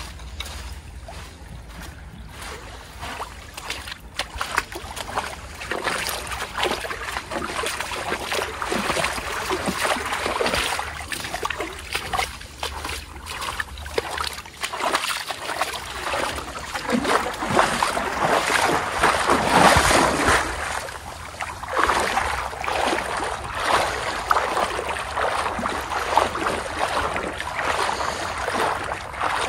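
Small waves washing and splashing at the shoreline in irregular swells, loudest a little past the middle.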